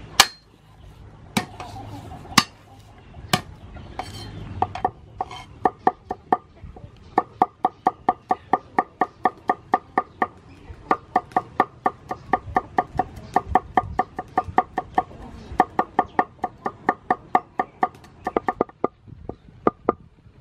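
Cleaver chopping garlic on a wooden cutting board. A few single knocks come first, then from about five seconds in a fast, steady run of chops, about four a second, each with a short metallic ring, broken by a few brief pauses.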